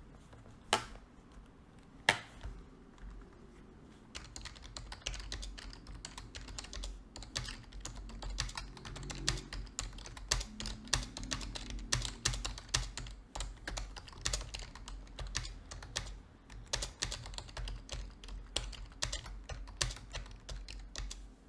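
Typing on a computer keyboard, recorded close up: two single key clicks at first, then from about four seconds in a fast, steady run of keystroke clicks until just before the end.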